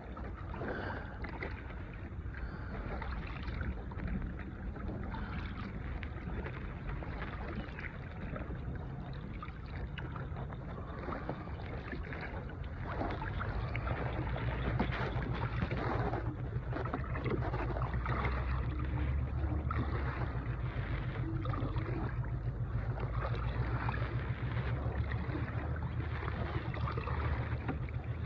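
Water moving against a small boat's hull with wind on the microphone, a steady low rumble that grows louder about halfway through.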